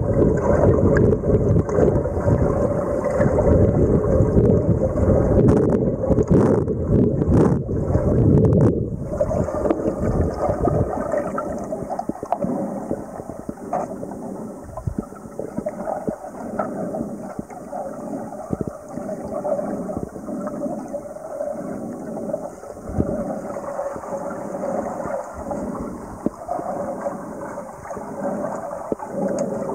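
Muffled underwater noise picked up by a camera held below the surface: a heavy low rumble for about the first nine seconds, then a quieter steady wash with scattered small clicks and crackles.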